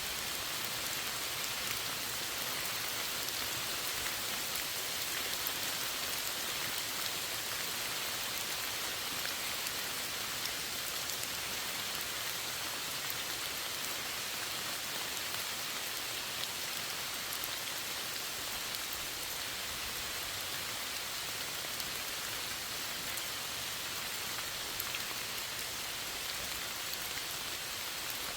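Steady rain falling and pattering on a surface, an even hiss with fine drop ticks throughout.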